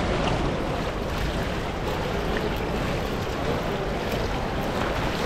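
Steady rushing water noise of an indoor swimming pool, with water lapping along the pool edge and overflow gutter.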